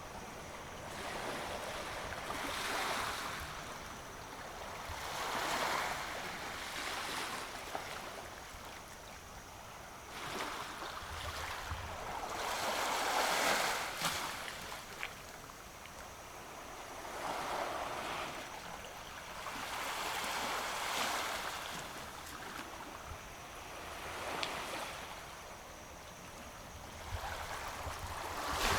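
Sea waves washing onto a sandy beach, a hissing wash that swells and fades about every three to four seconds.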